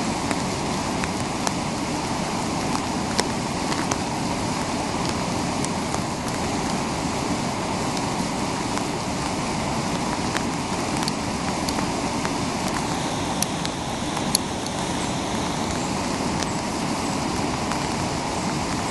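Whitewater river rapids rushing steadily, with a few short sharp clicks over the top, the loudest about 14 seconds in.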